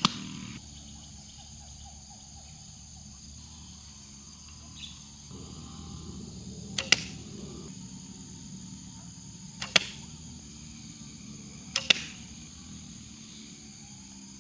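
Three bow shots, each a sharp snap as the bowstring is released: about halfway through, then twice more a few seconds apart.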